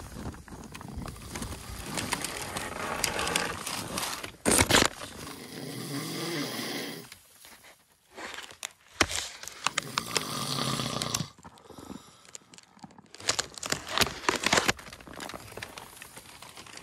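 A man snoring in his sleep inside a tarp shelter: long, slow snores about two seconds each, three of them in the first eleven seconds, then the snoring stops. Plastic sheeting crinkles and rustles as the door flap is handled, loudest about four and a half seconds in.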